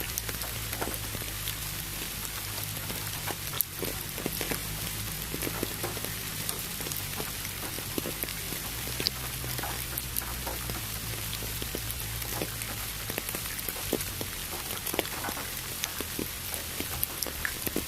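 Steady rain with many separate drops landing as sharp ticks, over an even hiss of pink noise and a low steady hum.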